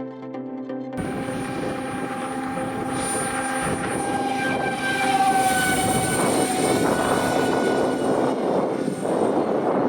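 Electric motor of a radio-controlled model airliner whining steadily in flight, its pitch dipping slightly about halfway through, over a broad rush of strong wind on the microphone. A short end of electronic music is heard first, cut off about a second in.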